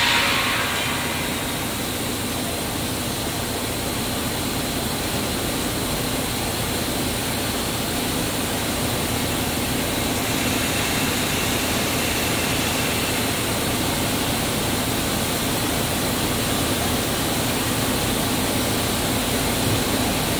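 Dough divider and inclined dough conveyor running together: a steady machine noise with a low hum beneath it, unchanging throughout.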